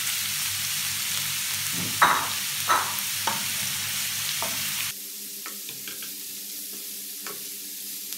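Carrots and green beans sizzling as they are stir-fried in a frying pan, with a wooden spatula scraping and knocking against the pan a few times. About five seconds in, the sizzle drops suddenly to a quieter hiss with a few light ticks.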